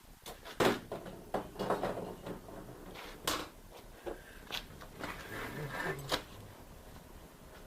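A series of irregular knocks, clicks and rattles from objects being handled, like a drawer or box being rummaged through.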